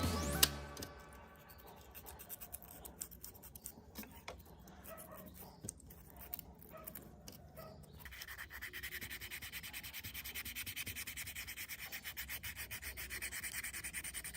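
Light clicks and taps of small parts being handled, then, about eight seconds in, fast steady back-and-forth rubbing on a small hard object, like sanding or scrubbing. A music track cuts off in the first moment.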